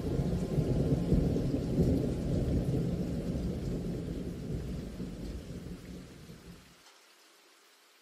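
Thunder rumbling over steady rain, loudest in the first couple of seconds and then dying away, gone about seven seconds in.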